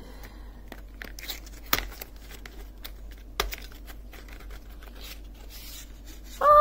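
Thin cardboard crochet-hook box being handled and slid open, and a wooden crochet hook drawn out of it: light rustling and scraping with a few sharp clicks, two of them louder.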